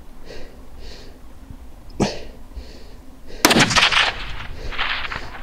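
Two hunting gunshots about a second and a half apart: a sharp crack about two seconds in, then a louder, closer blast, followed near the end by a short hiss.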